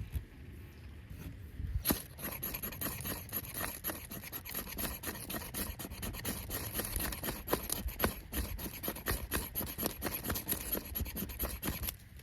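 Rapid, steady scraping strokes, several a second, starting about two seconds in and stopping suddenly just before the end.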